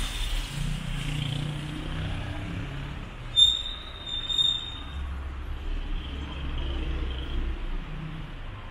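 City street traffic: cars and motorbikes passing steadily, with a short high-pitched squeal in two parts about three and a half seconds in, and a deeper vehicle rumble rising for a few seconds after.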